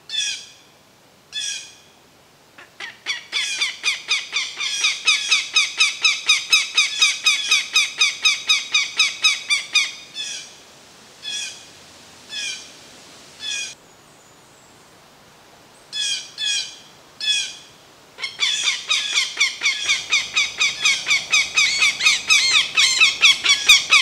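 Northern goshawk giving its harsh, repeated kak-kak-kak alarm call: long rapid runs of about four calls a second, with slower single calls in between. It is the alarm of an adult defending its nest against an intruder.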